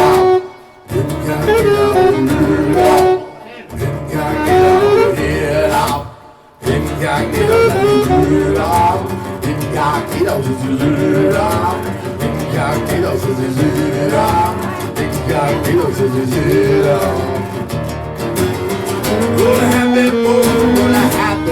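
A song playing: a singing voice over instrumental accompaniment, with three short breaks in the first seven seconds.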